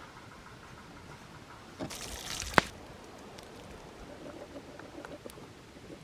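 Liquid pouring out briefly about two seconds in as canned black beans and corn are drained and rinsed, with a sharp tap at the end of the pour.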